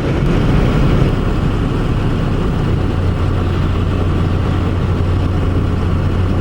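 Truck engine running with a steady low hum under an even rushing noise; the hum settles into a constant drone a few seconds in.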